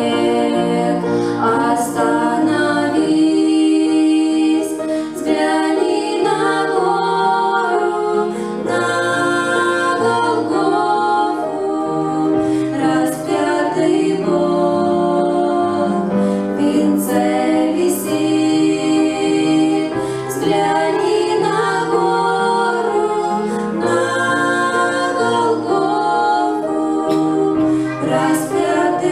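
A church choir with women's voices singing a gospel hymn in several parts over a low instrumental accompaniment.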